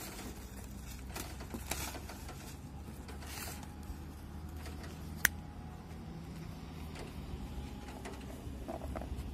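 A plastic-lined cardboard box being opened and handled: scattered rustling and crinkling of plastic and cardboard over a low steady hum, with one sharp click about five seconds in.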